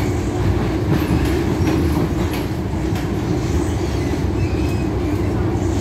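MTR Island Line metro train running along the track: a steady low rumble of wheels and motors, with a few faint, brief wheel squeals.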